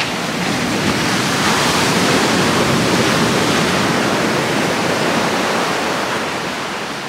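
Heavy surf breaking on the shore: the rush of a wave swells over a couple of seconds, then slowly fades as it draws back.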